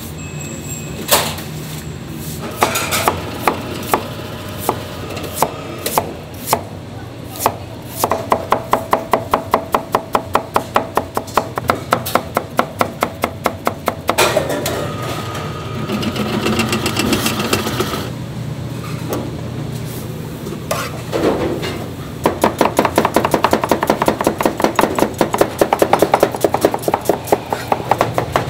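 Chef's knife chopping vegetables on a plastic cutting board: a few scattered strokes at first, then fast, even runs of about five strokes a second, broken by a pause of several seconds midway.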